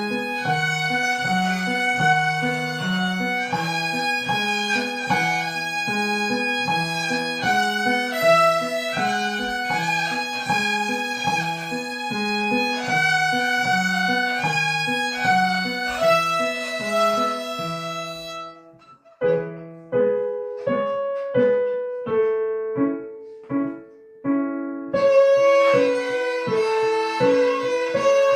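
Beginner violins playing a simple children's tune in unison over a steady keyboard-style accompaniment. About two-thirds through, the long bowed notes give way to short, quickly fading notes for a few seconds before the bowing resumes.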